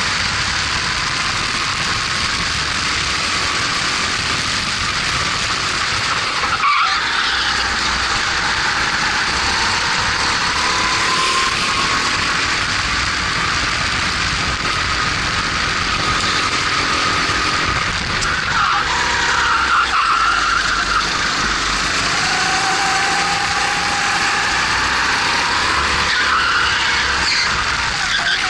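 Honda GX270 single-cylinder four-stroke kart engine at racing speed, its pitch climbing along the straights and dropping away when the throttle is lifted for corners, several times over, over a steady rush of wind noise.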